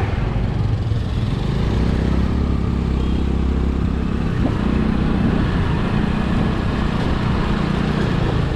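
A road vehicle's engine running steadily, with a low hum and road noise throughout.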